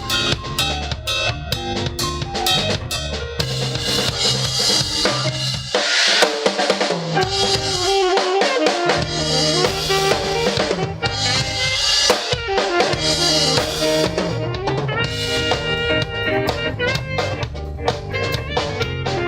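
Music with a drum kit and bass; the bass and kick drop out for a few seconds near the middle, then return.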